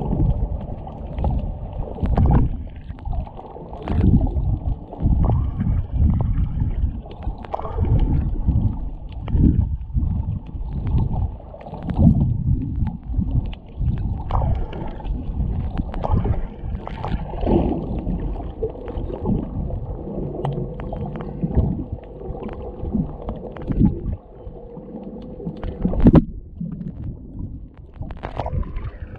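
Underwater sound picked up by a GoPro Hero7 as it is swum along: a muffled, irregular wash of water surging and gurgling around the camera. A faint steady hum joins partway through, and there is a sharp knock near the end.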